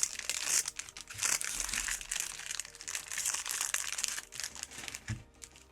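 Pokémon booster pack wrappers crinkling irregularly as packs are handled and opened, a dense run of crackles that thins out near the end.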